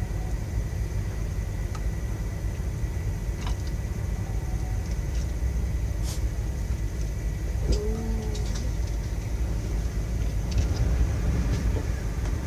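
Steady low rumble of the semi truck's idling engine, with a few light clinks of cutlery on glass dishes scattered through it.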